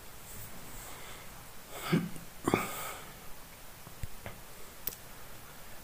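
Quiet room tone with a speaker's breath about two and a half seconds in, then a few faint clicks about four to five seconds in.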